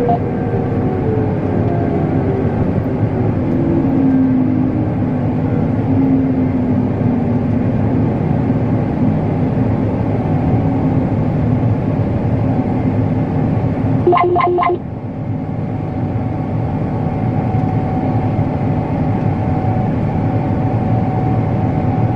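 Combine harvester running steadily while driven, its engine note falling over the first few seconds. About fourteen seconds in, a short run of about four quick electronic beeps sounds, and the machine's noise then drops a little.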